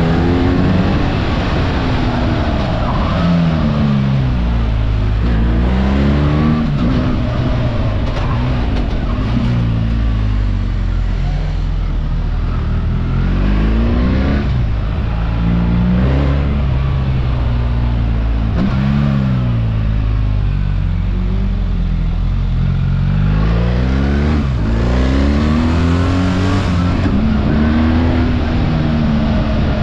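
BMW R 1300 GS 1300 cc boxer-twin engine under way, its pitch climbing as it revs and dropping back again and again, as it accelerates and shifts or eases off. A steady rush of noise runs beneath it.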